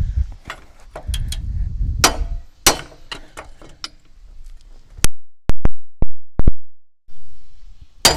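A bent metal part being struck to straighten it: a run of sharp metallic knocks, irregular at first, then about six loud, separate blows past the middle.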